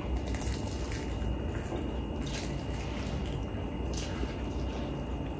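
Close-miked wet chewing of food, with a few faint clicks over a steady low hum.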